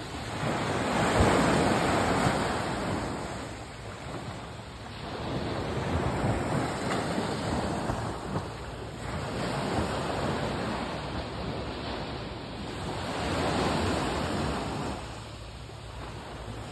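Small sea waves breaking and washing up a sandy beach, the surf swelling and falling back about three times.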